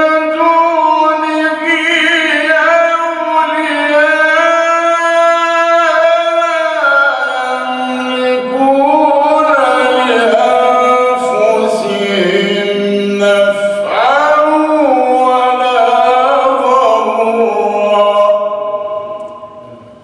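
A man chanting Quran recitation in the melodic mujawwad style, drawing out long ornamented notes that slide between pitches. The voice stops and fades near the end.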